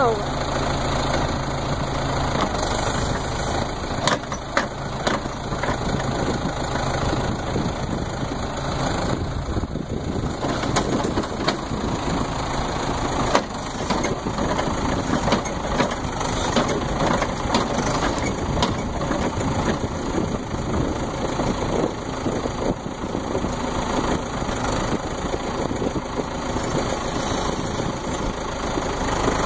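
Backhoe engine running steadily, with a few faint clicks and knocks over the top.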